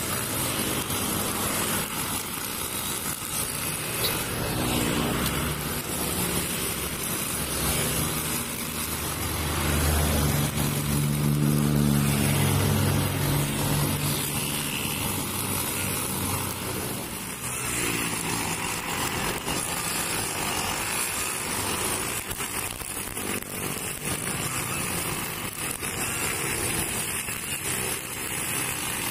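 Honda GX35 four-stroke brush cutter running steadily at cutting speed, its nylon line whipping through grass along a curb, with road traffic passing close by. A louder, deeper vehicle engine swells and fades about ten seconds in.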